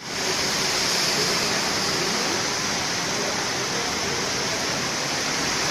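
Floodwater flowing, a steady rushing hiss with no breaks.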